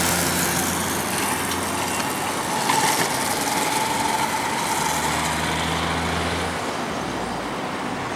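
Jet engine roar from an Airbus A319 climbing just after takeoff, heard from the ground. Under it runs a low steady engine hum that cuts off about six and a half seconds in.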